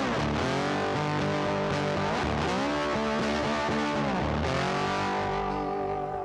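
Distorted electric guitar music with sliding, bending notes, settling into a held chord near the end.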